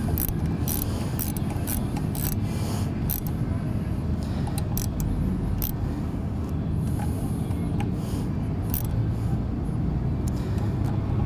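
Ratchet wrench clicking in short, irregular runs as the pinch bolts on the motorcycle's captive fork leg are tightened onto the front axle, over a steady low background rumble. The clicks come thickest in the first few seconds and turn sparse later.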